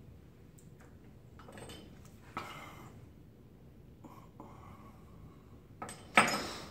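Handling knocks and clatter of small things being put down or taken out, perhaps on a bathroom counter or in a drawer. There is a light knock about two and a half seconds in and a much louder clack near the end.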